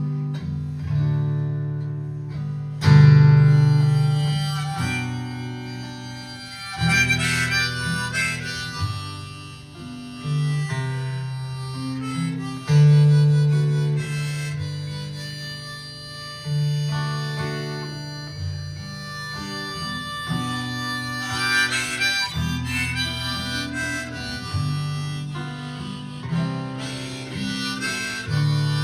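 Instrumental break in a live acoustic folk song: strummed acoustic guitar under a melody of long held notes, with no singing.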